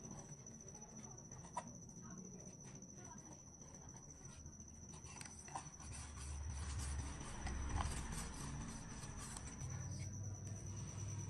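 Hands stretching a rubber balloon over the end of a PVC pipe: quiet rubbing and handling noise with a few small clicks, under a steady high-pitched tone.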